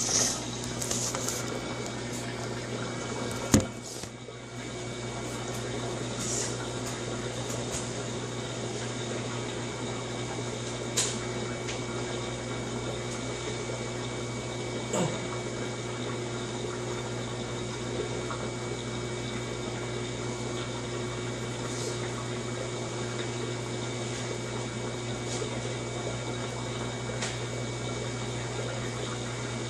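Electrolux LT15F washing machine running with water moving inside it and a steady electrical hum. There is one sharp click about three and a half seconds in, and a few faint ticks.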